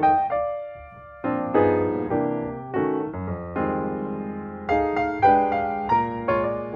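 Background piano music: struck notes and chords, each fading after it is played, with a brief lull about a second in.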